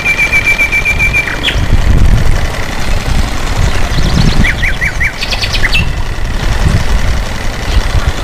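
Small birds calling outdoors: a rapid high trill that stops about a second in, then a few short falling chirps and quick trills around the middle, over a loud, uneven low rumble.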